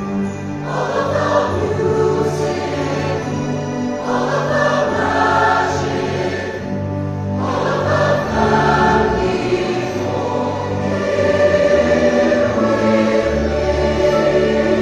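Choir singing slow, sustained chords in long held phrases, a new phrase beginning every three to four seconds.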